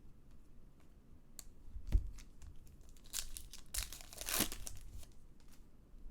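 Foil trading-card pack wrapper crinkling and tearing as it is ripped open, with a single thump about two seconds in.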